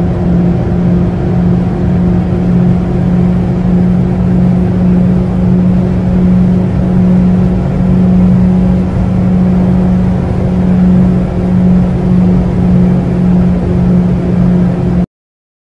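Proton Savvy's 1.2-litre four-cylinder engine pulling the car at steady highway speed, heard from inside the cabin over tyre and road noise: one even drone that holds its pitch, cutting off abruptly near the end.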